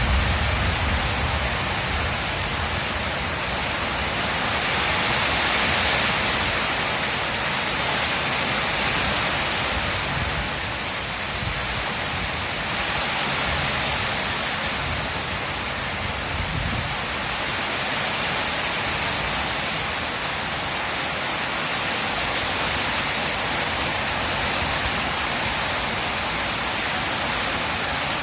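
Heavy tropical rainstorm: a dense, steady hiss of rain pouring down, swelling and easing slightly in level. A low rumble fades out in the first second.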